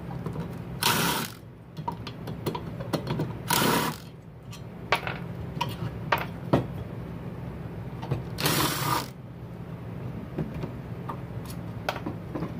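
Ryobi cordless drill spinning out the cylinder bolts of a small two-stroke trimmer engine in three short runs of about half a second each, with clicks and knocks of metal parts being handled between them.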